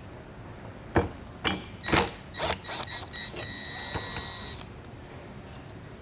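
A few light knocks, then a cordless drill runs for about a second with a steady whine, backing out a screw that holds the trailer door's kick plate.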